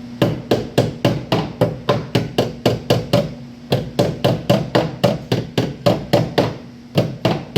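A hammer tapping rapidly on a Honda's soft sheet-metal quarter panel, about four strikes a second with a short break about halfway, working out a buckle in the panel.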